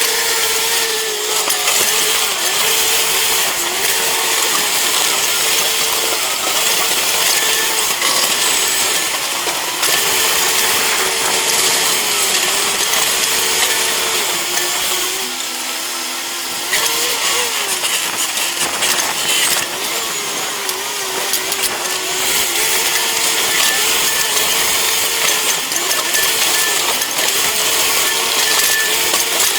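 Heavy machine's engine running under load, with a steady whine that steps slightly up and down in pitch over a constant hiss.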